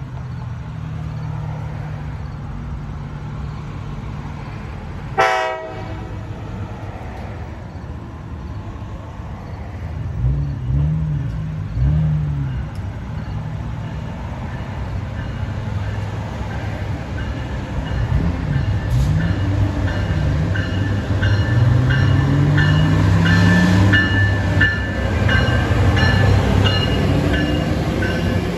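Diesel train at a station: a short horn blast about five seconds in, then the locomotive's engine running and rising in pitch as it works. Wheel squeal builds in the second half as the train grows louder.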